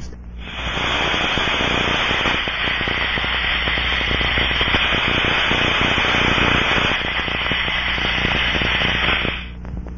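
Steady rushing hiss of a pressurized-air leak as heard through an Ultraprobe ultrasonic leak detector, the ultrasound shifted down into hearing range. It starts about half a second in and cuts off near the end.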